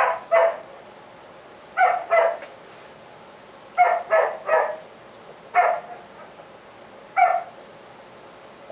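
Dog barking: eight short barks in bunches, two, two, three, then two single barks.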